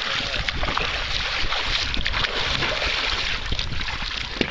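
Water splashing and sloshing as a swimmer in neoprene waders strokes through the water and climbs onto a plastic sit-on-top kayak, with a low wind rumble on the microphone.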